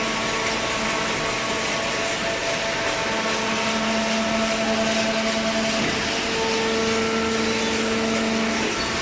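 Industrial hydraulic baler running steadily while cardboard is loaded, with a constant mechanical hiss and a humming tone that grows stronger about three seconds in and falls away near the end.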